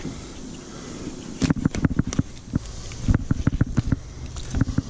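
Fillet knife cutting a redfish on a plastic cutting board: irregular clicks and knocks as the blade works past the bones and the fish is shifted on the board.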